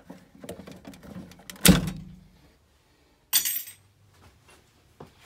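Boiler hoses and internal parts being handled and unclipped: small clicks and rustling, one loud knock a little under two seconds in, then a short high clattering rattle about a second and a half later.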